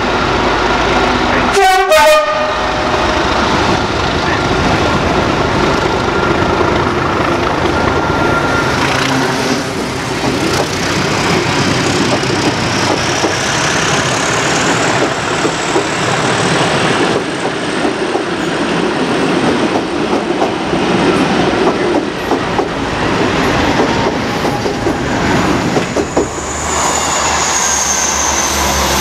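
Class 37 diesel locomotive with an English Electric V12 engine sounds a short horn blast about two seconds in. It then passes straight through the station, and its train of coaches rolls by with a steady rumble and clickety-clack of wheels over rail joints.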